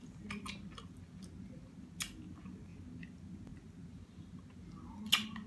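A person chewing seafood close to the microphone, with wet mouth sounds and a few sharp clicks, the loudest about five seconds in.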